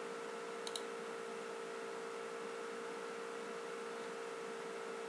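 Steady electrical hum with a faint hiss underneath, and one faint click about two-thirds of a second in.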